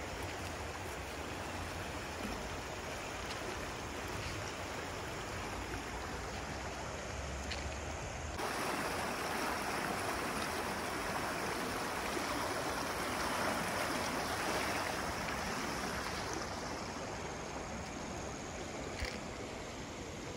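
Fast-flowing floodwater rushing over rocks and around a concrete river crossing, a river running high after heavy flooding. A steady rush that gets louder and fuller about eight seconds in.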